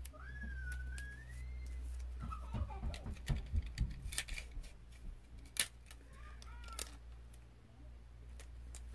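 Sticky tape being pulled, torn and pressed down by hand, with scattered clicks and crackles. A few short chirp-like pitched calls are heard, one rising over about a second and a half near the start.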